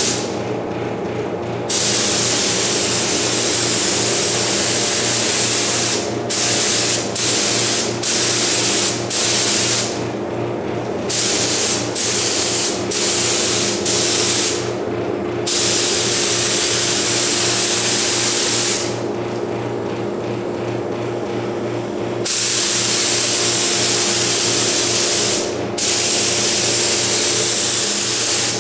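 Gravity-feed air paint spray gun hissing in repeated trigger pulls: long passes of several seconds, with a run of short bursts in the middle. Under it runs a steady low hum.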